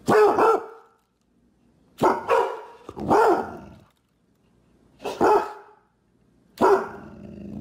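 A pit bull–type dog barking about five times, each bark short and loud with gaps of a second or so between them.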